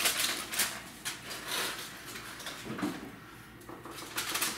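Kitchen handling noises: a light rustle and clicks of aluminium foil as a covered glass dish is picked up, then a few soft knocks as a refrigerator door is opened.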